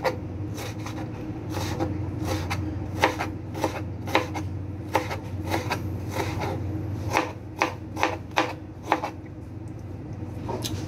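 Knife chopping on a cutting board in single, uneven strokes about twice a second, pausing briefly near the end, over a steady low hum.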